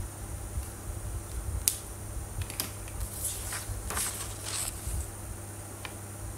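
A couple of sharp clicks, then a sheet of paper rustling as it is picked up off the desk and turned around.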